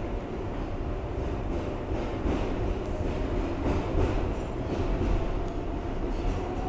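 Ride noise inside an R142A subway car running at speed: a steady rumble of steel wheels on rail, a faint steady whine, and a few sharp clacks as the wheels pass over rail joints.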